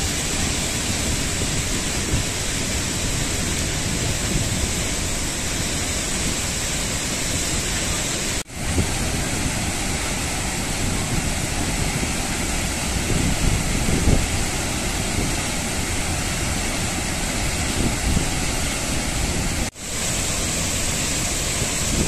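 Athirappalli waterfall pouring into its plunge pool: a steady rush of falling water. The sound cuts out for a moment twice, about eight and a half seconds in and near the end, then comes straight back.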